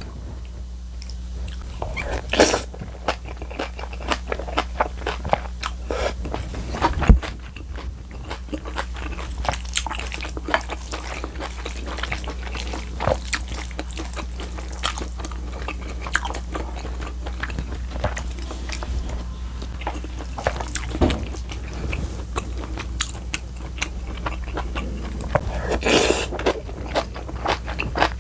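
Close-miked mukbang eating: chewing and crunching of kimchi, with many small wet mouth clicks and a sharp knock about seven seconds in, over a steady low hum.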